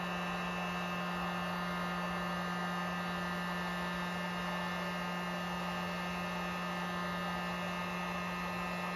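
Electric heat gun running steadily: a constant motor hum with a strong low tone, several fainter higher tones and an even airy hiss of its fan.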